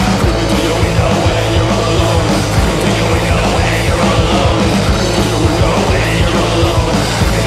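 Loud garage punk rock: electric guitar, bass guitar and drum kit playing a driving, steady beat.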